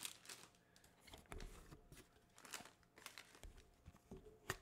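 Faint, scattered rustling and crinkling of a plastic booster-pack wrapper being handled, with a single sharp tick near the end.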